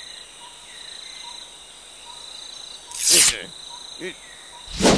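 Steady high chirring of insects, with two loud hard strums of an acoustic guitar, one about three seconds in and one near the end.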